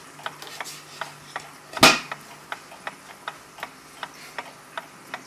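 Mechanical clock ticking steadily, about three ticks a second, with one loud knock a little under two seconds in.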